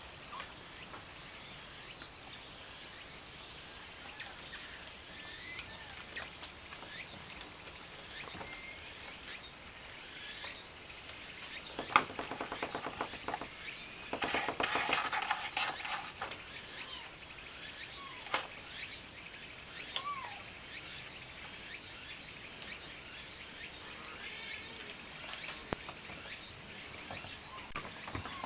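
Kittens at play: about halfway through, a sharp clack and a couple of seconds of metallic rattling as a kitten paws and climbs the bars of a wire pet pen. A faint, steady high chirring runs underneath, with a few short high calls later on.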